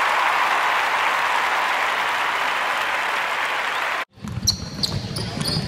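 Steady applause that cuts off abruptly about four seconds in. It is followed by the sounds of a basketball game in a gym: high squeaks of sneakers on the hardwood floor and sharp thumps of the ball bouncing.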